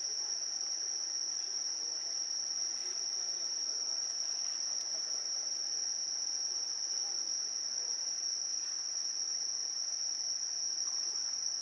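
Insects trilling in one steady, unbroken high-pitched drone, over a faint wash of harbour water.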